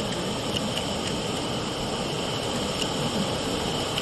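Hand-held bamboo tube firework (tezutsu hanabi) burning, its jet of sparks giving a steady rushing roar.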